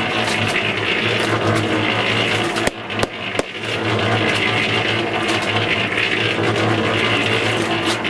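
Electric cement mixer running steadily, a continuous motor hum with churning noise, with a short break and a few clicks about three seconds in.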